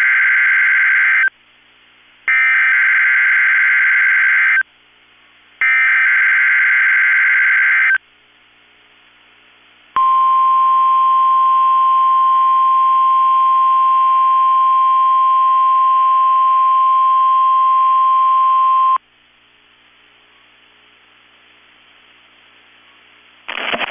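NOAA Weather Radio SAME header: three bursts of warbling digital data tones, each about two seconds long with short gaps between, the first already under way. Then, after a pause, the steady 1050 Hz warning alarm tone sounds for about nine seconds and cuts off, opening a required weekly test of the warning system.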